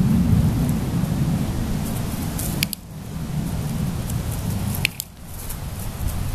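Wind buffeting the microphone, a loud, uneven low rumble. Two short sharp clicks cut through it, about two and a half seconds in and again about two seconds later.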